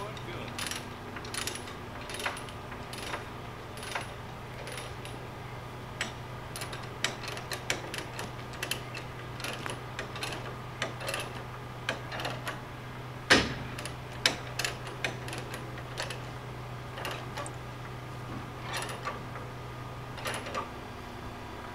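Light metallic clinks and clanks of tie-down gear being handled, irregular, with one louder clank about halfway through. A truck's engine idles steadily underneath.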